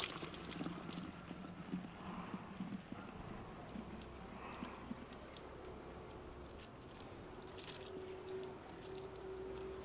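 Faint water pouring and dripping into a container, with small irregular splashes, as 100 ml of car-wash foam concentrate is topped up with water to make 1000 ml of solution.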